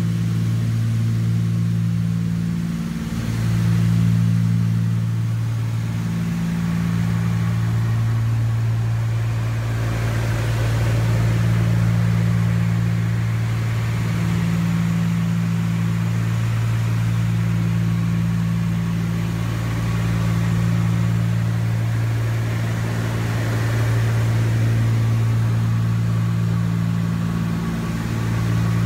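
Cabin drone of a Cessna 310Q's twin six-cylinder Continental engines and propellers in cruise, heard inside the cockpit. It is a steady low hum whose upper tone swells and fades every couple of seconds.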